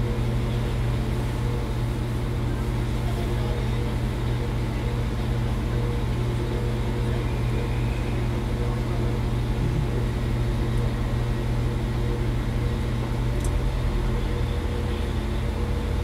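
Class 196 Civity diesel multiple unit standing with its underfloor diesel engine idling, a steady low drone with constant hum tones, heard from inside the carriage.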